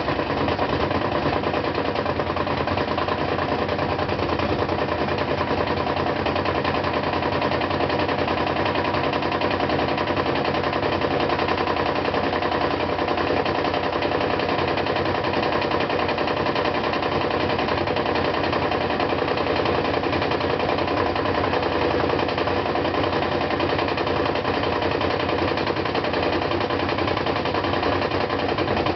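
GE Hydrowave washing machine spinning with an extremely loud, rapid knocking and rattling that runs on without a break. The cause is the drum's concrete counterweight, whose two mounting screws had been left untightened.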